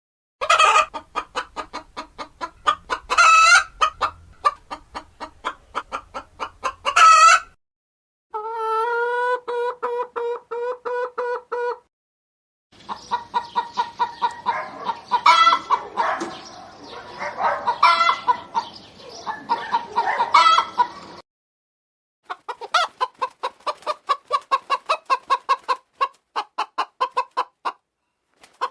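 Domestic hens clucking in quick repeated pulses, with a few louder drawn-out calls in the first stretch. It comes in several separate takes divided by short silent gaps.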